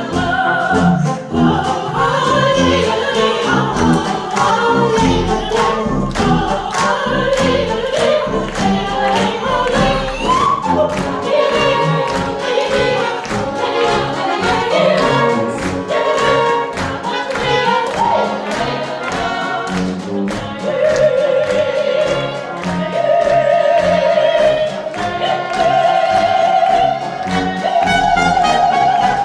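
Children's choir singing a song with instrumental accompaniment. Over the last few seconds the voices hold long notes that step upward one after another.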